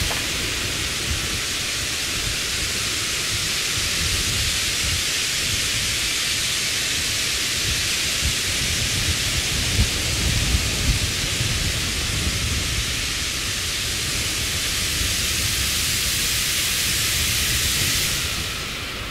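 Designed ambient noise: a steady high hiss over a low, rumbling undertone; the hiss drops away near the end.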